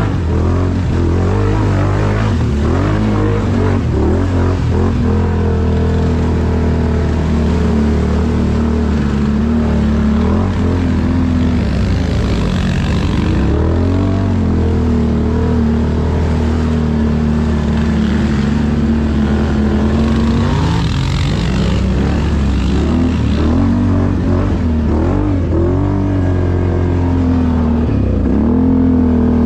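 ATV engine running under way, its pitch rising and falling repeatedly as the throttle is opened and eased off.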